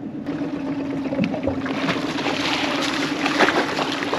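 Hooked barracuda thrashing and splashing at the surface beside a small aluminium boat, the crackling splashes building over the second half. Under it, a steady hum from the boat's motor.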